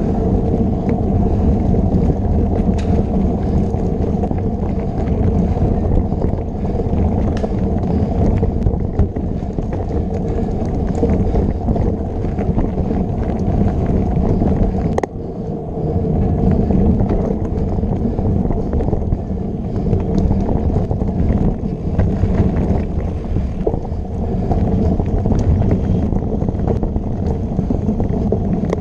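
Steady rumble of a mountain bike rolling fast over a dirt singletrack, with wind on the bike-mounted camera's microphone and scattered small clicks and rattles from the bike. The noise dips briefly about halfway through.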